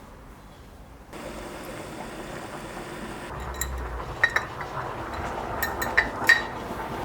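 Water running steadily from about a second in, with several sharp glass clinks in the second half, the loudest near the end: glass containers being handled and filled in the kitchen.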